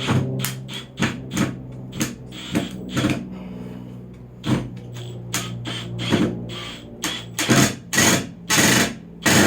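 Power drill driving a long screw into wood: a string of short clicks over a steady motor hum, then several half-second bursts near the end as the screw is run in.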